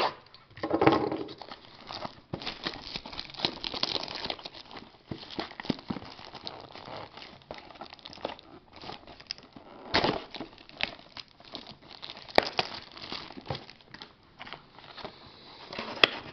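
Cellophane shrink wrap being torn and peeled off a sealed trading-card box, crinkling and crackling throughout, with a few louder rips.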